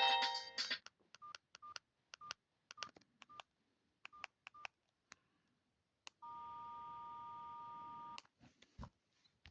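Alcatel OT-217D mobile phone: a ringtone cuts off under a second in. Then the keypad is pressed about ten times in quick succession, each press a click with a short beep. After a pause comes a steady two-pitch tone for about two seconds, then a few more key clicks.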